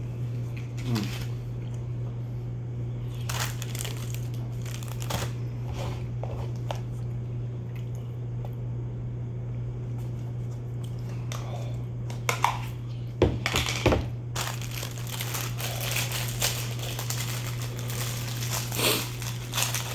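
Plastic packaging crinkling and rustling as it is handled. It comes in scattered crackles at first and runs almost without a break from about two-thirds of the way in, over a steady low hum.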